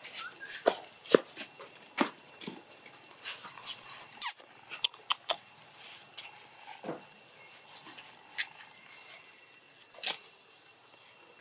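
Footsteps on dry leaf litter: irregular sharp crackles and snaps, crowded in the first half and thinning out toward the end.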